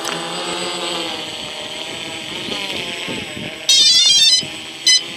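DJI F450 quadcopter's brushless motors spinning at idle on the ground, a steady whine that wavers slightly in pitch. Near the end comes a loud burst of rapid electronic beeps, then one short beep.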